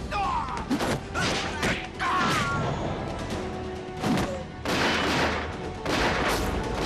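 Action film soundtrack: rapid gunfire and hard impact hits and crashes over background music.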